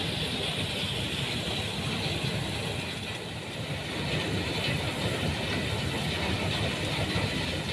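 Stone crusher plant running: a steady, dense mechanical rattling and grinding noise.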